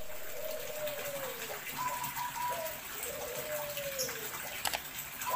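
A dove cooing: two long notes that each slide downward, over a steady hiss.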